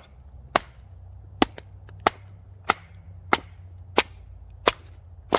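Batoning wet wood: a baton strikes the back of a blade driven into a log, nine sharp knocks at a steady pace, about one every two-thirds of a second, splitting the wood to reach its dry inside.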